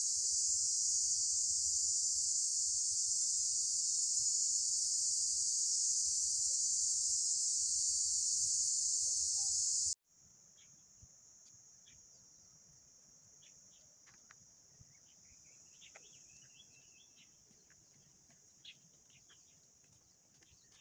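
Steady, high-pitched drone of an insect chorus in hillside vegetation, loud at first, cutting off suddenly about halfway and then continuing more quietly. A few faint bird chirps come in the second half.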